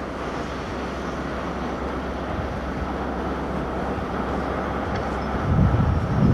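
Class 43 HST diesel power car running as the train rolls slowly through the station, a steady low hum with a louder low rumble near the end.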